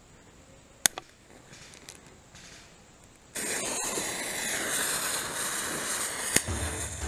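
A sharp crack a little under a second in; then, about three and a half seconds in, a blue smoke grenade goes off and hisses loudly and steadily as it pours out smoke, with another sharp crack near the end.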